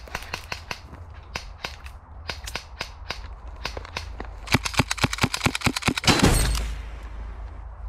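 Footsteps crunching on dry straw, then a rapid string of sharp airsoft gunshots about halfway through, ending in a short rushing burst of noise.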